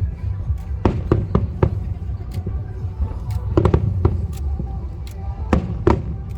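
Aerial fireworks going off: a rapid, irregular string of bangs, about a dozen in six seconds, over a continuous low rumble.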